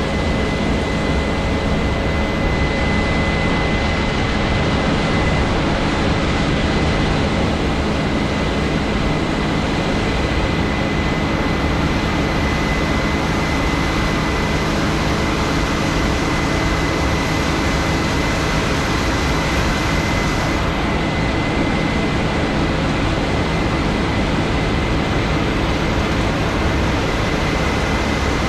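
Case IH 7230 Axial-Flow combine running close by while harvesting soybeans: a steady heavy machine drone with a constant high whine over it.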